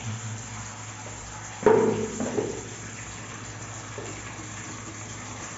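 Steady running-water hiss and hum from the bathroom plumbing. About a second and a half in, a sudden loud metallic scrape and squeak, lasting under a second, as a tool grips and turns the chrome angle stop valve.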